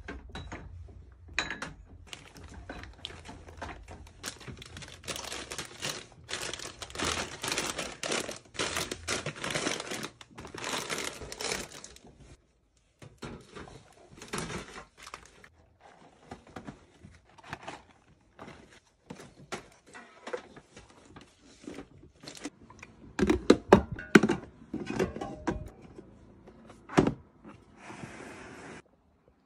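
Snack packets and bottles being handled and set into a rolling cart: plastic wrappers crinkling for several seconds, then scattered clicks and knocks, with a cluster of heavier thunks late on.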